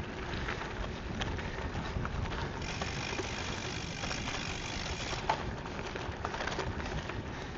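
Gravel bike riding over a dirt and gravel trail: tyres rolling over loose stones with small rattles and clicks from the bike, steady throughout.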